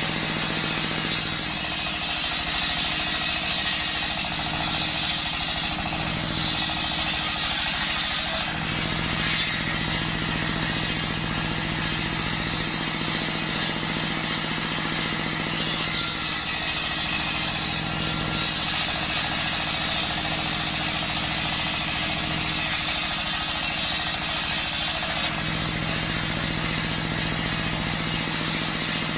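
Belt-driven table circular saw, powered by a stationary engine, ripping waru logs into slabs. The engine and spinning blade give a steady hum throughout, and a higher hissing cut noise swells and fades several times as the blade goes into the wood and comes out.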